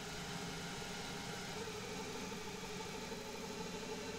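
Hercus PC200 CNC lathe running while a high-speed-steel stub drill cuts a 9.1 mm hole in S1214 free-machining steel: a steady machine hum with a mid-pitched whine over a hiss.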